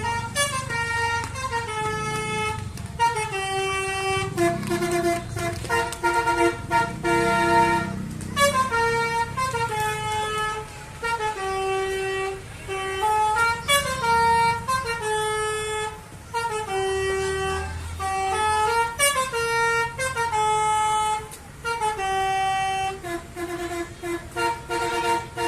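Telolet horn on an Indonesian bus playing a tune: loud multi-tone horn notes stepping up and down in pitch in repeating phrases, with a couple of brief pauses, over a low engine rumble.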